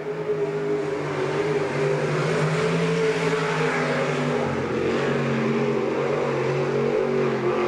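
Winged dirt-track sprint car's V8 engine running hard on a time-trial lap, steady with small rises and dips in pitch.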